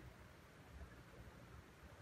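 Near silence: faint background hiss with a low rumble.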